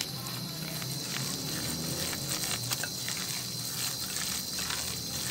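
A hand squishing and kneading a wet ground chana dal and spice mixture in a glass bowl, making soft, irregular squelches and light ticks, over a steady background hum.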